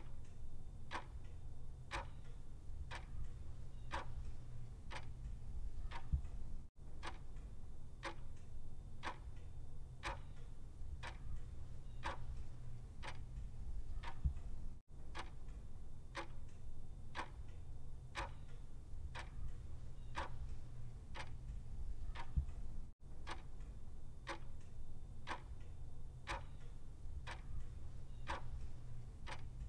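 Clock ticking sound effect: a steady run of evenly spaced, sharp tick-tock clicks over a low steady rumble. The sound cuts out for an instant about every eight seconds where the loop repeats.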